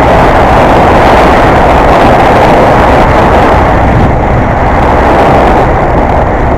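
Honda XR250 Tornado motorcycle riding on the road: a loud, steady rush of engine and wind noise with no clear engine note standing out.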